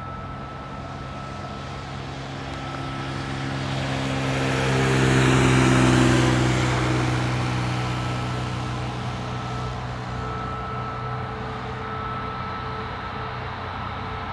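Jet engines of a taxiing Boeing 737 MAX running at low power, a steady whine over a low rumble. About four seconds in, a louder passing sound swells up, its tones falling in pitch as it goes by, then fades away.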